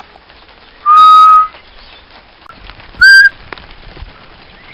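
Two short, loud mouth whistles, a hunter whistling at a woodpigeon to make it lift its head: a held steady note about a second in, then a shorter, slightly higher one about three seconds in.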